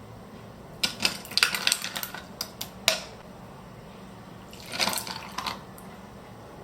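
A quick run of small clicks and knocks, then a short rush of water-like noise about five seconds in.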